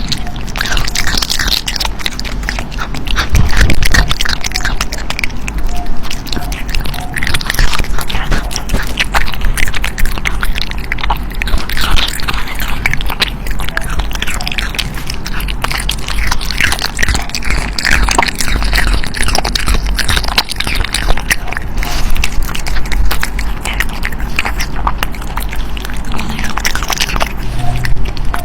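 A raw-fed cat biting and chewing its raw food: a dense, irregular run of close-up crunching and smacking bites.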